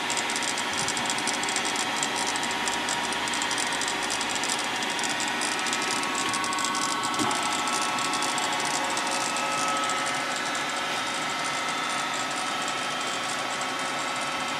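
Sharp 8x20 automatic cylindrical grinder running its traverse cycle: the motors and grinding-wheel spindle run steadily, giving several steady tones over a hiss.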